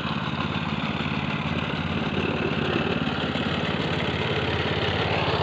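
Rice-paddy plough tractor's engine running steadily with a fast, even chug, getting a little louder near the end.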